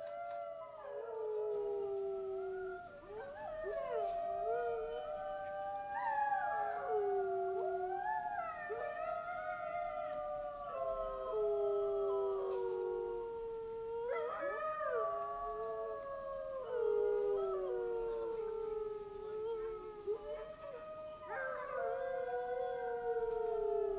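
A pack of wolves howling in chorus: several long, overlapping howls that slide down in pitch, with fresh high howls joining every few seconds.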